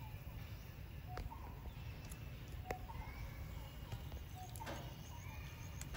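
Macaques eating peanuts: a few sharp clicks as the nuts are cracked and handled on the metal platform, with faint short chirping calls over a low rumble.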